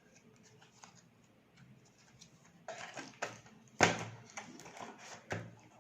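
Box contents being handled: soft rustles and small clicks of plastic and cardboard, with a few sharper knocks, the loudest about four seconds in.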